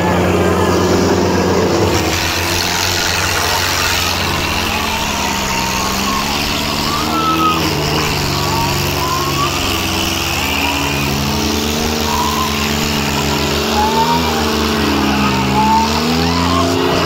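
Tractor diesel engines labouring at full load as they pull against each other in a tug-of-war, the engine note wavering up and down as they strain. Crowd voices shout over it.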